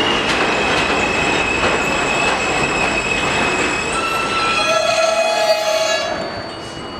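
New York City subway train moving slowly along an elevated station track: rolling noise with a high, steady wheel squeal. About two-thirds of the way through, a steady pitched tone sounds for about a second and a half, then the overall noise drops.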